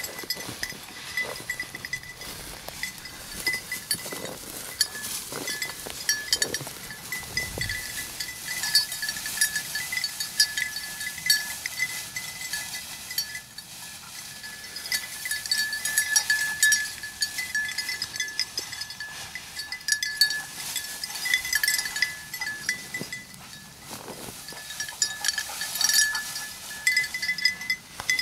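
A small bell on a bird dog's collar tinkles unevenly as the dog moves through the cover. Dry weeds and brush swish against legs underneath it.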